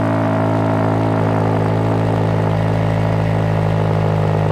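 2007 Honda Civic Si's K20Z3 inline-four idling steadily, heard right at the tailpipe of its newly fitted aftermarket exhaust.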